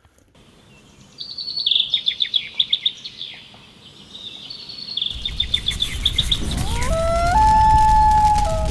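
Rapid, high trilling bird calls. From about five seconds in, a rushing noise swells and a long howl rises in pitch, holds steady, and drops briefly near the end.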